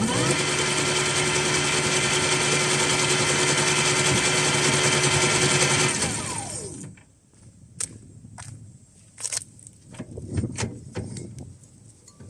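Electric vehicle's drive motor whining under throttle as it spins the propped-up wheel freely. It rises quickly at the start, holds a steady pitch for about six seconds, then falls in pitch as the wheel coasts down, followed by a few light knocks. No clunking is heard with the wheel off the ground.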